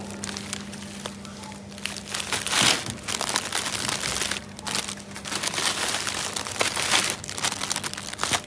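Plastic food packaging crinkling in the hand, in irregular bursts, as a bag of frozen udon and a plastic-wrapped salad pack are handled and set into a plastic shopping basket. A low steady hum sits underneath for the first couple of seconds.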